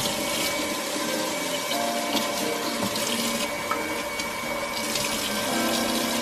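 Kitchen tap running steadily into a sink, the stream splashing on the drain strainer and on a cloth being rinsed under it.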